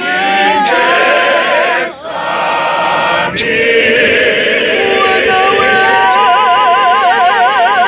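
A male choir singing a cappella in harmony, a gospel praise-and-worship song. The voices break off briefly at about two seconds and again just past three, then hold long notes with a wide vibrato.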